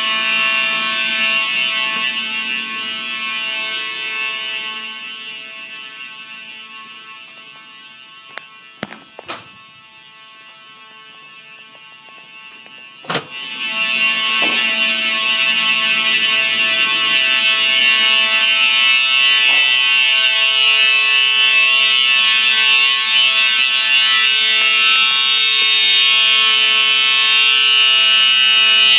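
Fire alarm signalling device sounding continuously during a fire alarm system test. It fades well down over several seconds and is at its quietest about ten seconds in. Sharp clicks come around nine seconds in, a loud click follows about four seconds later, and then the alarm is loud and steady again.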